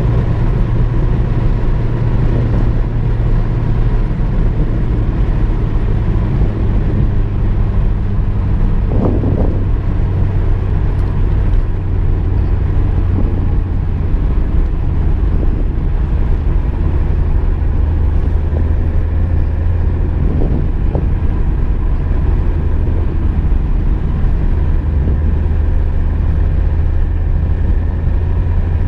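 Car being driven: a steady engine drone with road noise, the engine note settling a little lower about nine seconds in.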